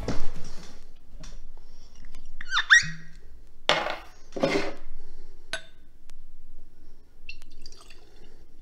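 Cork stopper of a whisky bottle squeaking as it is twisted out, about two and a half seconds in. A few knocks follow as the bottle and stopper are handled on the table, then a faint pour of whisky into a tasting glass.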